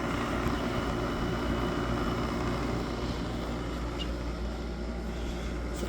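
Window air conditioner running and blowing cold air: a steady hum from the compressor and fan, with a constant whoosh of airflow.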